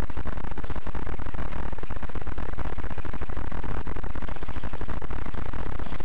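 Helmet camera microphone buzz: a steady, fast-rattling electrical buzz, heaviest in the low end.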